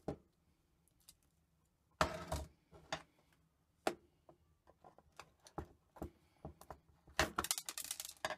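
Sharp metal clicks and knocks as a screwdriver and a Samsung 3.5-inch hard drive are handled on a wooden bench, then a scraping clatter lasting about a second near the end as the drive's metal top cover is lifted off.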